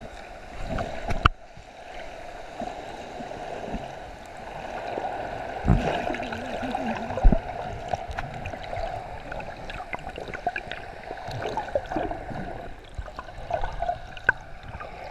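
Water sloshing and gurgling around a camera held just below the sea surface, with bubbles, a steady hum underneath and a few sharp knocks.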